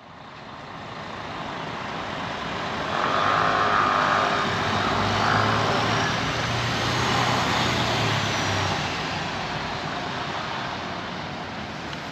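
Street traffic noise: a motor vehicle's engine hum grows louder and fades again as it passes, over a steady hiss of traffic. The sound fades in at the start.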